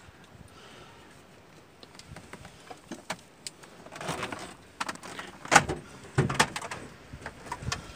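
Handling noise inside a car: a quiet few seconds, then rustling and a run of sharp clicks and knocks, the loudest about five and a half seconds in, as the phone is moved about.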